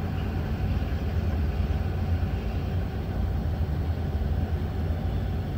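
Freight train of open hopper cars rolling past, a steady low rumble.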